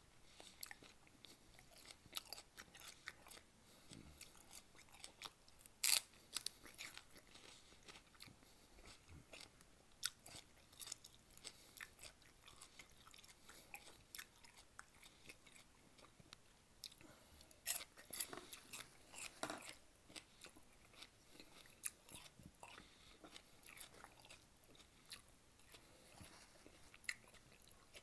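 Close-miked chewing of crisp raw celery dipped in creamy dip: a string of sharp, wet crunches, the loudest about six seconds in and a quick run of them about two-thirds of the way through.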